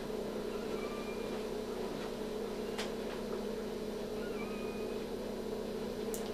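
Steady hum of operating-room equipment, with faint, short, high squeaks of newborn puppies at irregular moments over it and two sharp metallic clicks from surgical instruments, about three and six seconds in.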